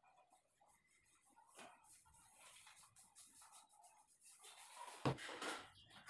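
Faint scratchy rubbing of a paintbrush stroking paint onto a gypsum ceiling, with a sharp knock about five seconds in.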